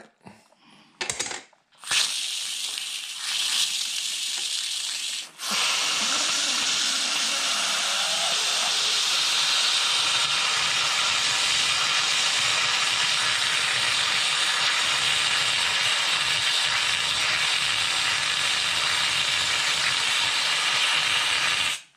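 Instant Pot electric pressure cooker venting steam through its held-open release valve on a quick release: a few short spurts, then a loud, steady hiss from about five seconds in that cuts off suddenly near the end.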